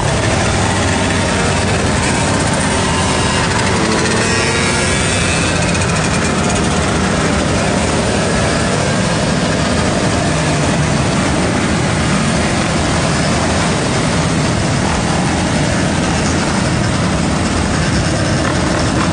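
Motorcycle being ridden, its engine running under a steady loud rush of noise, with a few engine notes rising and falling about four to six seconds in.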